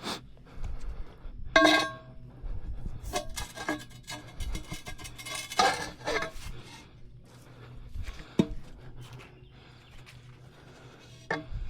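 Steel tire bar clanking and scraping against the wheel as a tire is pried off the rim by hand, with several sharp metal knocks that ring briefly.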